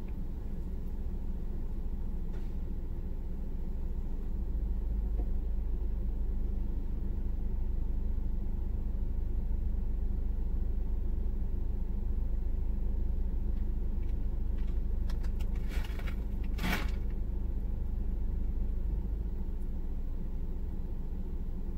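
Steady low rumble of a parked car's engine idling, heard from inside the cabin. A short clatter sounds about three-quarters of the way through, after a few faint clicks.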